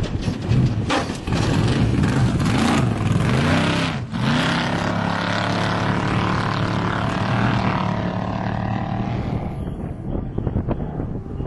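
Off-road race vehicle's engine running hard past the course: the note rises and falls for the first few seconds, drops briefly about four seconds in, then holds a steady drone that fades away near the end.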